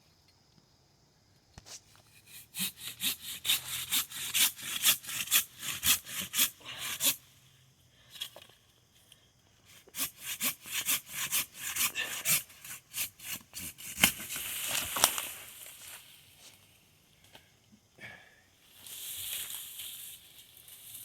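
Hand saw cutting through wood in quick back-and-forth strokes, about three a second, in two runs with a pause of a few seconds between. Rougher, less regular noise follows in the second half.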